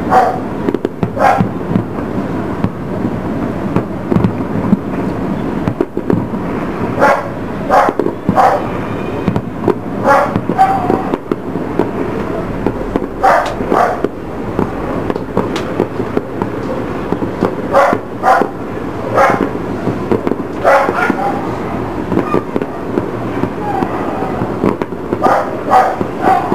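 Aerial fireworks shells bursting at a distance: sharp bangs and crackles in clusters every few seconds over a steady background rumble.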